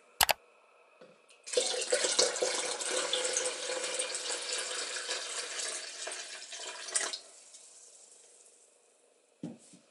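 Water poured from a stainless steel pot into a plastic bucket of iron-water mordant, a steady splashing pour of about six seconds that dilutes the mordant. A sharp click comes just at the start and a short dull knock near the end.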